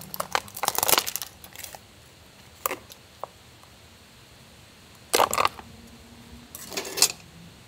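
Small metal objects clinking and tapping: a quick flurry of clinks in the first two seconds, then a couple of single taps, then two short scraping noises near the end.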